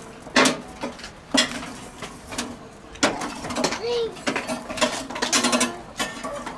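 Metal hand tool clanking and scraping in the steel firebox of an offset charcoal smoker: three sharp ringing clanks about a second apart, then a quick run of rattling clinks near the end.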